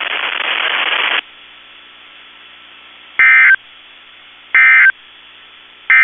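NOAA Weather Radio broadcast: a hiss of static that cuts off about a second in, then three short, loud bursts of Emergency Alert System (SAME) end-of-message data tones, about 1.3 seconds apart, over a faint hum. The three bursts are the end-of-message code that closes the Required Weekly Test.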